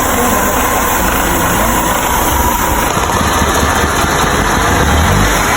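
Mercedes-Benz W124 E230's four-cylinder petrol engine idling steadily.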